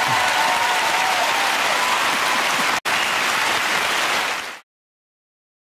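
Audience applauding steadily. It breaks off for an instant a little under three seconds in, then fades out after about four seconds.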